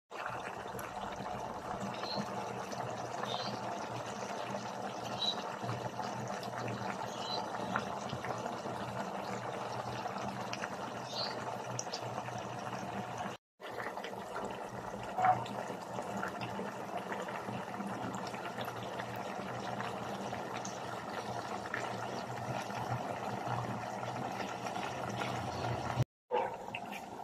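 Chicken simmering in a thick banana-ketchup sauce in a pan, bubbling steadily with small pops. The sound cuts out briefly about halfway through and again near the end.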